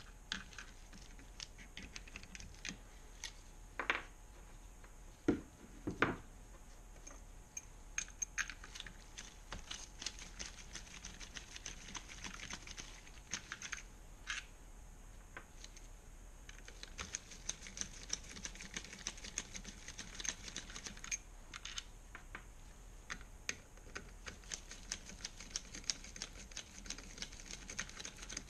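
Socket ratchet clicking in quick runs as the M8 bolts of a motorcycle engine's alternator casing are undone, with a few louder knocks of tools and bolts set down on the wooden bench in the first several seconds.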